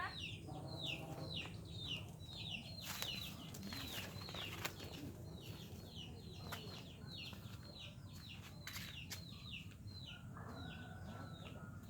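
A bird calling in a steady series of short, high, downward-sliding chirps, about two or three a second, with a few sharp clicks mixed in.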